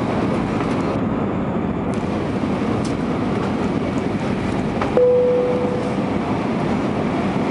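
Steady cabin noise of an Airbus A320 in flight on approach: the engines and the airflow over the fuselage heard from inside the passenger cabin. About five seconds in, a single chime sounds once and fades over about a second.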